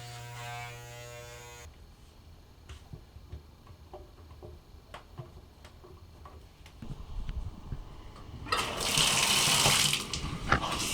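A steady electric buzz stops abruptly, followed by a few light clicks and knocks, then near the end a loud rush of running water for about two seconds.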